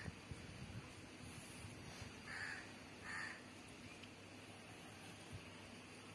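Crow cawing faintly, two short caws about two and a half and three seconds in.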